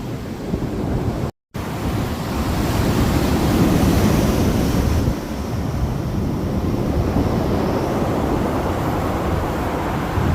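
Storm surf breaking on a beach, with strong wind buffeting the microphone. The sound cuts out completely for a moment about a second and a half in.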